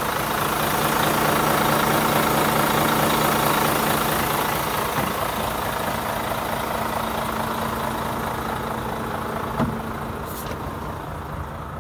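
Volvo FH500's 13-litre straight-six diesel idling steadily, fading toward the end. One short knock about ten seconds in.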